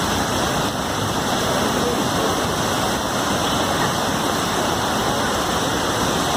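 Steady, unbroken rush of heavy water, with no breaks or single events standing out.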